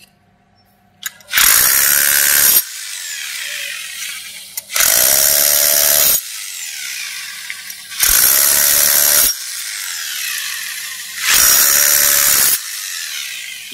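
Electric drill boring holes into a white foam plate, running in four short bursts of about a second each, a few seconds apart, with quieter sound between them. Each burst drills one corner hole to the depth marked on the bit for a 2.5-inch spring.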